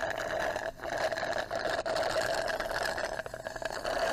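Soda being sucked up through a drinking straw: a continuous rattly slurping, broken by a few very short pauses.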